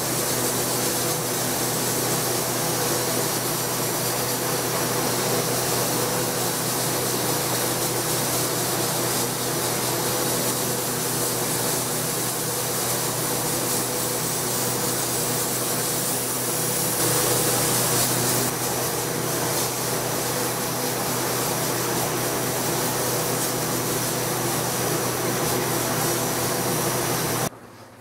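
Sandblasting glass in a blast cabinet: a steady hiss of abrasive from a hand-held nozzle striking a glass panel, frosting the glass around a splattered liquid resist. A steady hum runs underneath, and the sound cuts off suddenly near the end.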